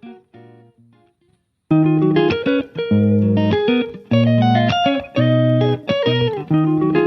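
Background music. It fades out and drops away about a second in, then comes back loudly with a run of sharply struck notes.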